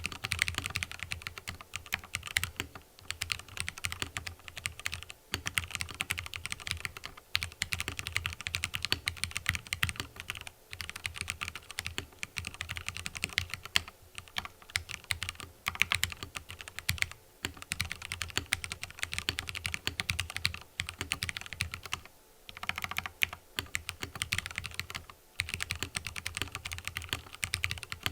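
Fast continuous typing on a mechanical keyboard with fully lubricated Cherry MX Red linear switches: a dense run of soft key strikes, pausing briefly a few times.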